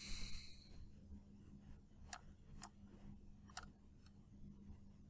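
A few soft computer mouse clicks, three of them between about two and three and a half seconds in, over a faint steady hum.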